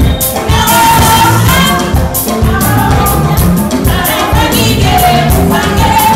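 Live band music played loud through the stage PA: several women singing together over a steady, driving beat of drums.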